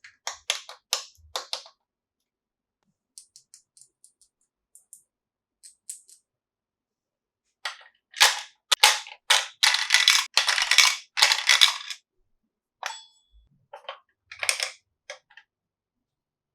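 Plastic toy packaging being handled, crinkling and snapping in quick sharp bursts. There are a few snaps at the start and light clicks a few seconds in, then a dense stretch of crinkling in the middle, and scattered snaps near the end.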